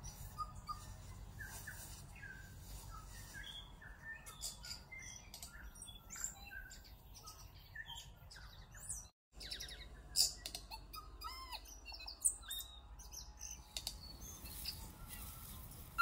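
Birds chirping and calling, with many short chirps and whistles overlapping. The sound cuts out for a moment just after nine seconds.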